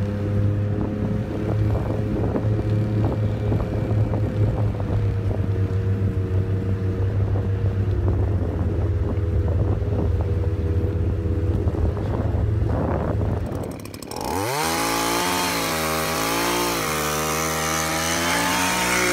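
A snowmobile engine running at a steady speed over the snow. About fourteen seconds in it gives way to a powered ice auger revving up and boring into lake ice, its pitch wavering under load.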